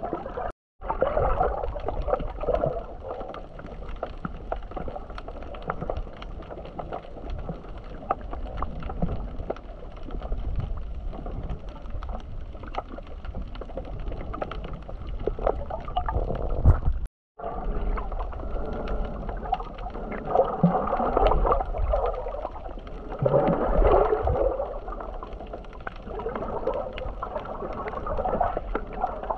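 Muffled water sound picked up by a camera in the sea: sloshing and gurgling with many small clicks and crackles over a low rumble. The sound drops out briefly twice, about a second in and just past halfway.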